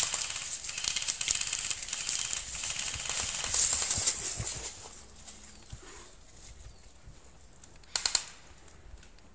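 Airsoft guns firing in rapid automatic bursts, a fast clattering rattle for the first four and a half seconds, then one short burst about eight seconds in.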